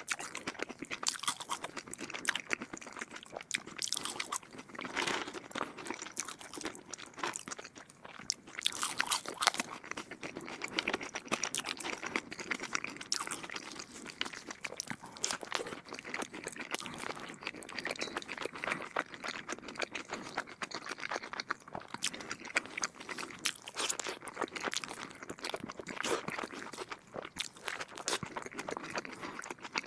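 A person chewing and biting food close to the microphone, with frequent, irregular crisp crunches.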